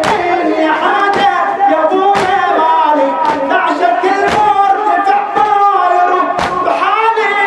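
Shia latmiyya lament: voices chanting a mournful refrain in long held lines, with regular chest-beating thumps from the mourners about once a second.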